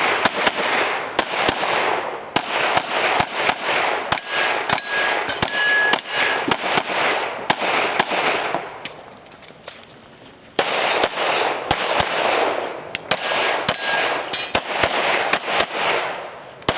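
Rapid strings of pistol shots fired in a practical shooting stage, shot after shot in quick succession, with a pause of about two seconds a little past the middle before the firing resumes.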